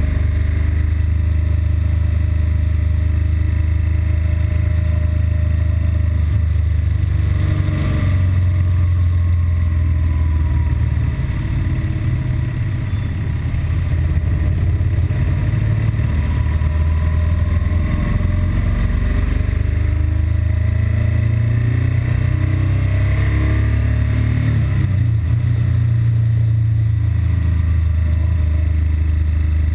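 BMW R1200GS Adventure's boxer-twin engine running under way with a steady low rumble, revs rising and falling a few times. The engine is running normally here, before the intermittent stalling and rough-idle fault sets in.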